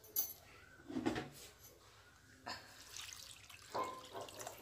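Water poured into a steel cooking pot set inside a pressure cooker, with a few faint clinks of steel.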